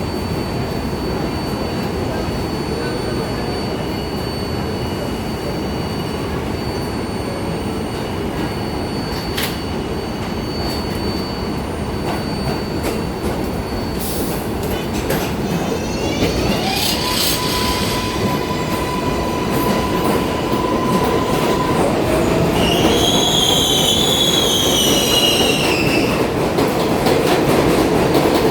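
New York City subway train rolling through the station: a steady rumble of steel wheels on rail that grows louder over the second half. High wavering wheel squeal comes in about halfway through and again, louder, near the end.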